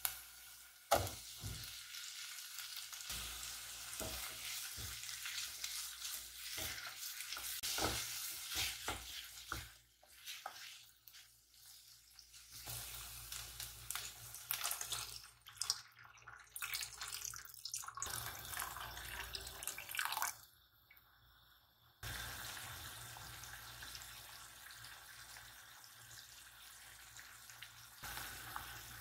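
Chopped onions sizzling in a saucepan, with a spoon stirring and clicking against the pan. Hot water is poured in partway through, and near the end the sauce is boiling steadily.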